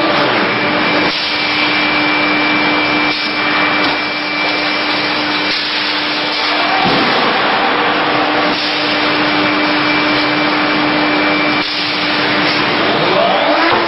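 Automatic hot-forging press line running: a loud, steady rushing hiss with a constant hum underneath, which drops out briefly about seven seconds in. A rising whine comes near the end.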